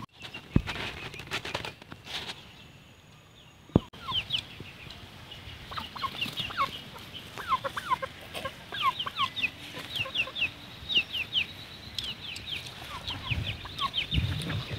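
Chickens calling: many short, high, falling peeps, like chicks, starting about four seconds in and continuing in quick succession.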